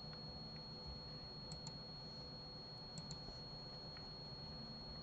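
Faint computer mouse clicks, a few short ticks in pairs, over quiet room noise with a thin steady high whine.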